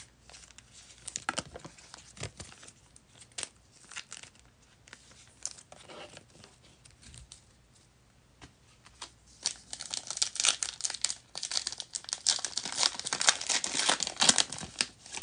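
Foil wrapper of a football trading-card pack being handled and torn open: scattered light crackles at first, then about two-thirds of the way in a dense, louder run of crinkling and tearing.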